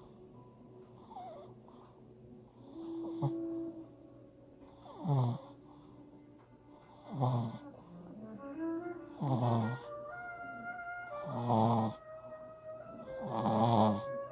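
A sleeping puppy snoring: deep, rattling snores roughly every two seconds, starting about five seconds in, over background music.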